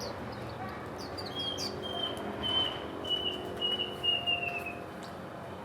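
Small songbird singing: a few short high chirps, then a run of about six repeated notes on one pitch, the last few sliding slightly lower, over a steady background hiss.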